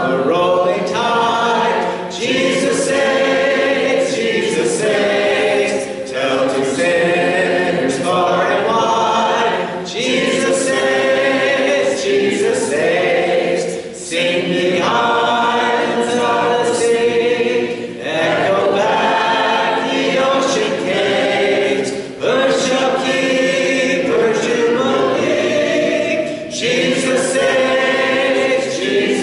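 Congregation singing a hymn unaccompanied, a cappella, with a song leader's voice amplified through a microphone, in phrases of a couple of seconds with brief breaths between lines.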